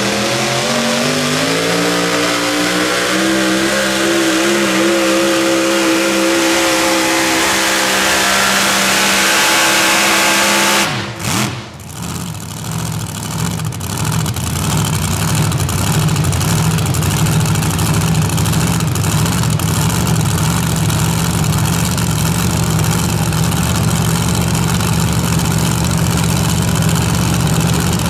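Super modified four-wheel-drive pulling truck's engine at full throttle, revs climbing over the first few seconds and holding high. The sound drops away abruptly about eleven seconds in, and an engine then runs steadily at much lower revs.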